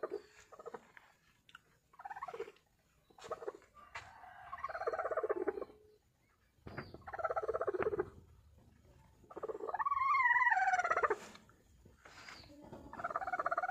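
Broody hen on her nest grumbling at the close approach, a string of drawn-out growling calls, several lasting a second or two, one about ten seconds in rising and falling in pitch. It is the defensive growl of a sitting hen disturbed on her eggs.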